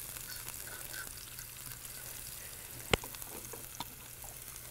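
Chopped onion sizzling in hot olive oil in an electric skillet as it is stirred: a steady sizzle with small crackles, and one sharp tap on the pan about three seconds in.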